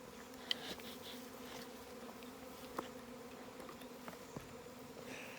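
Swarm of honeybees buzzing in a steady hum, many bees in the air at once. They are stirred up around the stump of a tree that has just fallen, which the hiker takes to have held their nest.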